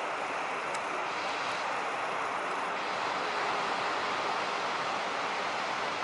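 Steady rushing roar of heavy ocean surf, even and unbroken, with no distinct events.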